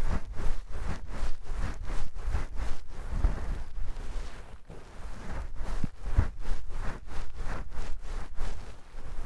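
Cloth towel rubbed against the microphone in quick, even strokes, about four a second, a soft rustling scrub.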